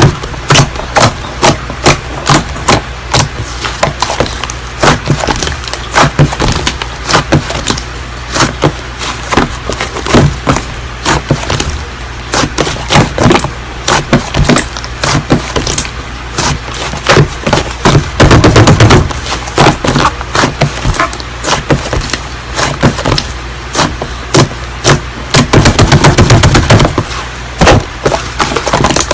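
Slime being squeezed and poked, giving a dense run of sharp crackles and popping clicks, several a second, over a steady low hum.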